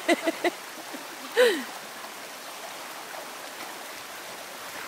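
Shallow stream rushing steadily over a flat rock slide. A voice makes a few short sounds in the first half second, and about a second and a half in a single loud call falls in pitch.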